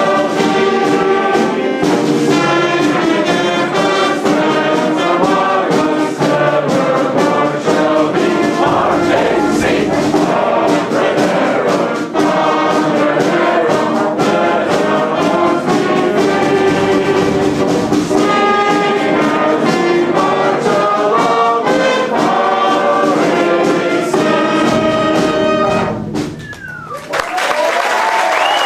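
Brass band playing a march-like tune with trumpets and trombones. The music stops about 26 seconds in, and audience applause and cheering break out.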